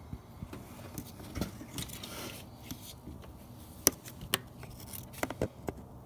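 Scattered light clicks, taps and scrapes of hands and tools handling parts in a car's engine bay, with a short rubbing scrape about two seconds in and a sharper click about four seconds in.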